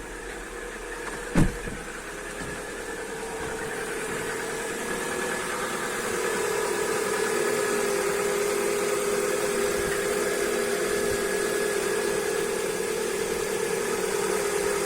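Lada Vesta petrol engine idling steadily on a cold start at minus 10 degrees, the sound growing louder over the first few seconds and then holding even. The brief hydraulic-lifter rattle of the cold start has passed. A single sharp knock comes about a second and a half in.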